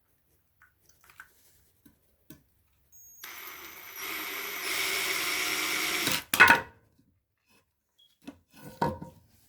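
Ryobi 18-volt cordless drill in drill mode running for about three seconds, its motor speeding up in two steps as the trigger is squeezed harder, then stopping abruptly. A loud sharp knock follows straight after, with a few lighter knocks near the end.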